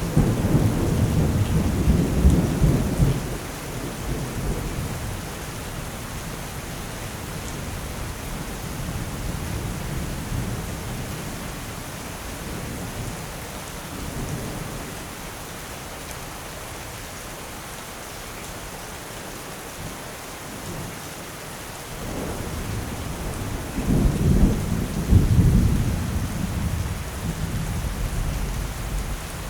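Steady heavy rain with rolling thunder. One loud rumble comes at the very start and fades after about three seconds, and another builds up near the end and peaks with a few cracks before easing off.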